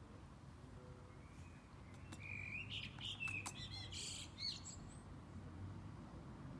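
A bird chirping: a short run of high, quick chirps from about two to five seconds in.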